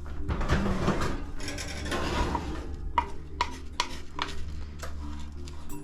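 A spoon stirring and scraping granola around a baking pan, then several sharp taps of the spoon against the pan about half a second apart.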